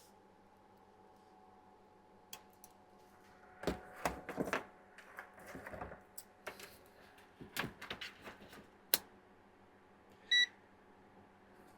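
Scattered clicks and rustles of test probes and parts being handled, then one short electronic beep from a digital multimeter about ten seconds in, as it is switched to DC volts to test a capacitor for stored charge.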